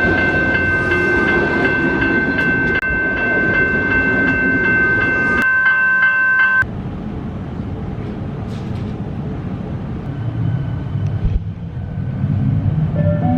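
Passenger train running, with a steady high-pitched whine or squeal over its rumble. The whine stops abruptly partway through, leaving a quieter rumble.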